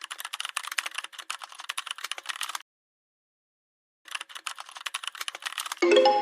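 Rapid computer-keyboard typing clicks that stop dead for about a second and a half, then resume. Near the end, music with bell-like mallet notes comes in.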